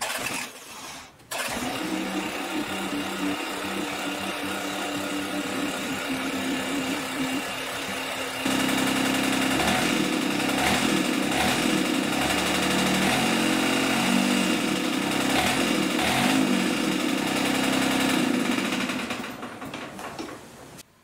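Yanmar diesel engine in a John Deere 400 garden tractor starting about a second in and running steadily, then throttled up to a louder, busier run about eight seconds in, before being shut off and winding down near the end.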